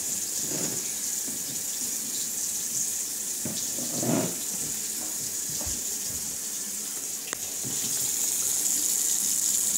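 Bathroom sink faucet running, a thin steady stream of water splashing into the basin, a little louder in the second half.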